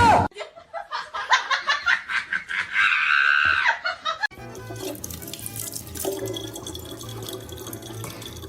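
Irregular splashing sounds, then from about four seconds in a steady run of water.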